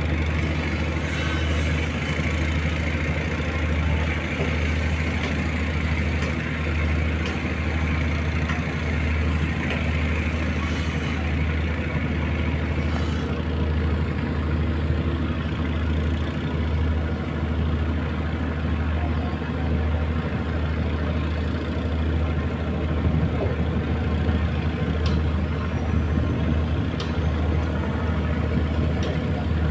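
A large wooden fishing boat's inboard diesel engine running steadily with a deep, pulsing low throb as the boat manoeuvres away from the quay.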